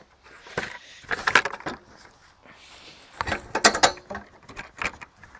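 A sharpening stone being fitted into its holder: clicking and rattling handling noise in two bursts, about a second in and again about three seconds in.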